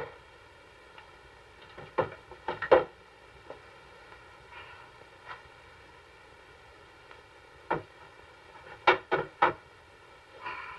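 Sharp knocks and clicks of things being handled: three close together about two seconds in, one near eight seconds, then three more quickly near nine seconds, over a faint steady hum.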